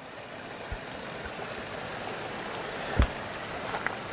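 Steady rush of flowing stream water, with a single low thump about three seconds in.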